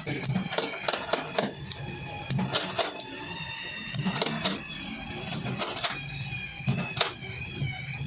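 Dent-repair work on a car's sheet-metal side panel: irregular sharp taps and clicks, several a second, with a high wavering tone over them, strongest in the second half.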